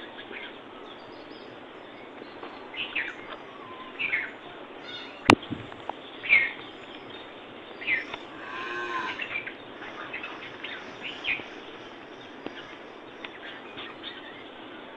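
Birds chirping in short calls, with one long cow moo about eight seconds in and a single sharp click about five seconds in.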